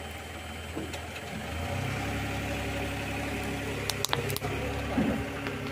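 Car engine idling steadily as the car creeps forward. A few sharp cracks about four seconds in, and one more a second later, are the plastic toy jeep breaking under the tyre.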